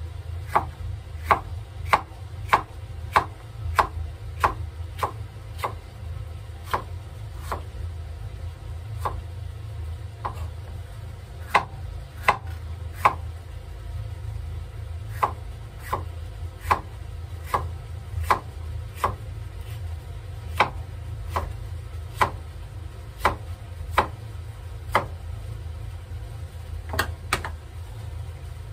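Kitchen knife slicing a green bell pepper on a wooden cutting board: sharp knocks of the blade on the board, about one and a half a second, with a few short pauses, over a steady low hum.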